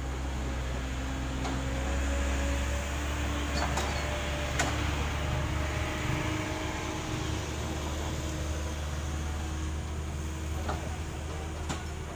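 A vehicle engine running steadily nearby, a low hum with a slightly wavering drone, with a few faint clicks.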